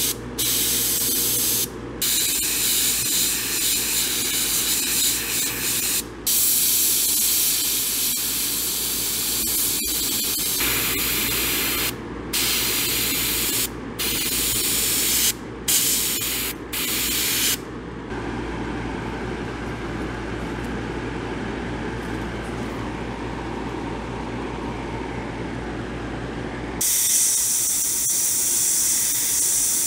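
Iwata airbrush spraying paint onto a wooden lure to lay thin detail lines. It is a steady hiss of air, broken by several brief pauses as the trigger is let off, and softer for a stretch in the second half. A steady low hum sits beneath it until near the end.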